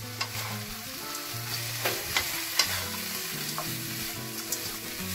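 Chopped roasted pork belly sizzling in a non-stick frying pan as a wooden spatula stirs through it, the vinegar and ginisa-mix sauce cooking into the meat; several sharp scrapes and taps of the spatula stand out over the steady sizzle.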